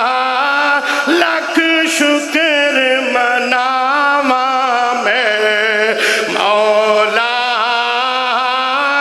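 A man singing a Punjabi naat in long, wavering held notes with quick trills and runs.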